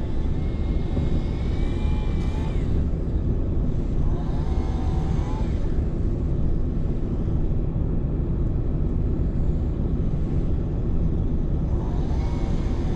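Truck engine idling steadily, heard from inside the cab as a low even rumble. Faint voices come through briefly a few times.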